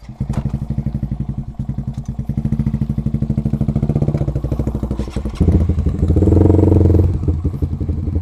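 150 cc single-cylinder four-stroke motorcycle engines with racing exhausts: one starts right at the beginning and idles with a rapid, even pulsing. About five and a half seconds in the sound steps up, louder and fuller.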